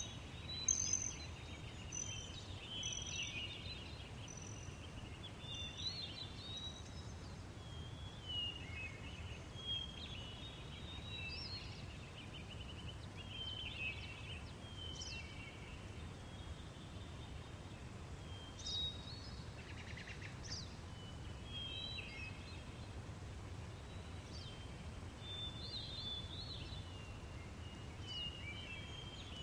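Daytime countryside ambience: small birds chirping and trilling in short, scattered calls over a steady low breeze rumble.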